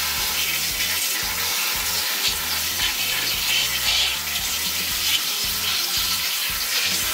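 Tap water running steadily onto salted napa cabbage in a perforated metal colander, splashing as gloved hands work the leaves to rinse off the remaining salt.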